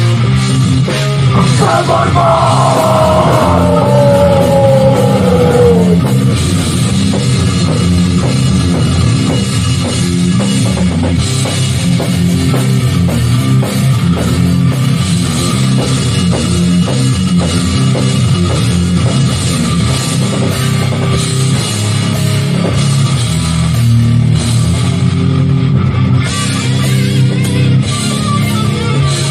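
Hardcore band playing an instrumental passage with distorted guitars and a drum kit, loud and steady. From about a second in, a single tone slides down in pitch for about five seconds.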